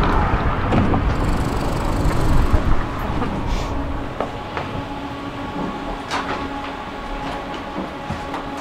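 Low-floor tram standing at a stop with its doors open. First a louder low rumble of street noise; then, about three seconds in, the quieter cabin with a steady electrical hum from the tram's equipment, broken by a few light knocks and footsteps.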